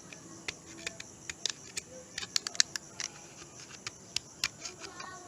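Utility knife cutting notches into the cracked plastic of a motorcycle fairing: a run of irregular sharp clicks and scrapes, quickest about two to three seconds in.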